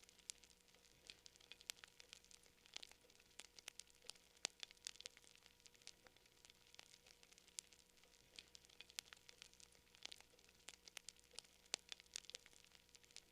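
Campfire crackling: irregular sharp pops and snaps, several a second and some louder than others, over a faint steady hum.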